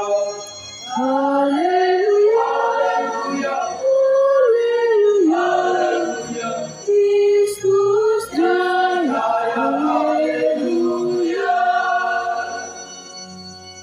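Mixed choir of women, girls and men singing a church hymn, one melody moving phrase by phrase, fading away near the end.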